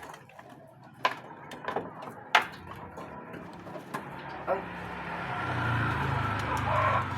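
Domestic pigeons cooing, low and swelling in the second half, with two sharp knocks about a second apart near the start.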